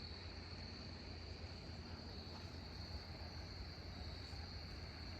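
Faint, steady chorus of night insects: one continuous high-pitched trill that does not break, over a low rumble.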